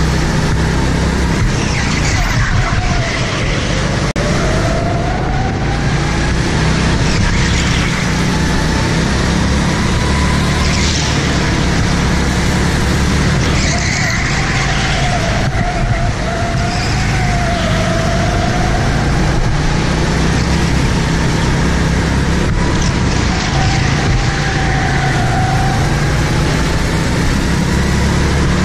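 Go-kart driven at speed around an indoor track, heard from on board: a steady loud motor and rumble, with a wavering whine that rises and falls several times through the corners.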